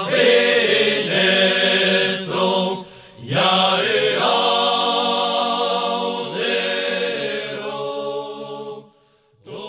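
Chant-like vocal music, sung in long held notes. There is a short break about three seconds in, and the singing fades out just before the end.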